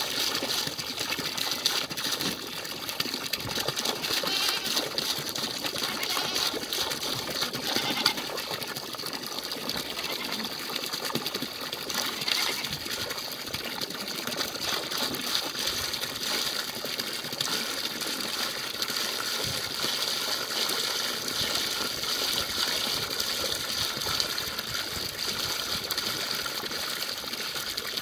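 Tap water gushing steadily from a hose pipe and splashing into a plastic tub of water.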